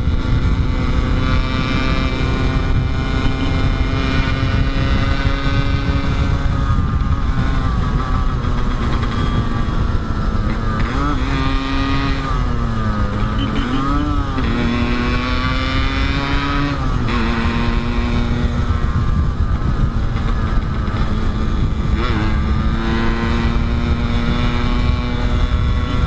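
Yamaha RX-King's two-stroke single-cylinder engine running at a steady cruising speed under heavy wind rumble. Around the middle the engine note drops, wavers and climbs back up, then holds steady again.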